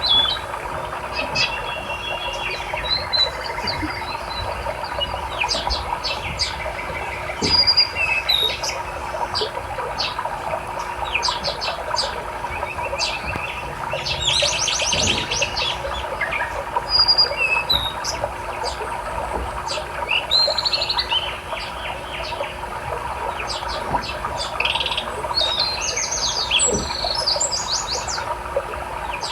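Many small songbirds chirping, trilling and calling all through, over the steady rush of a flowing river.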